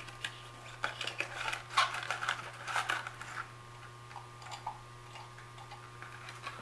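Hard clear plastic case and the card packaging insert being handled as the insert is lifted out: a cluster of clicks and scraping rustles over the first few seconds, then a few fainter clicks.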